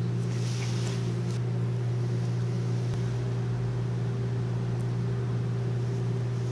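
Steady low hum, even and unchanging, with a faint brief rustle about half a second to a second and a half in.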